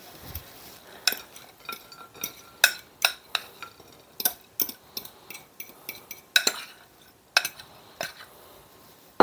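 A metal spoon scraping and knocking against a glass mixing bowl and pie dish as crumbled cookie crust mixture is worked out of the bowl: a run of irregular clinks, some ringing briefly.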